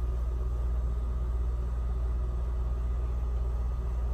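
A steady low hum of room background noise, unchanging throughout with no distinct events.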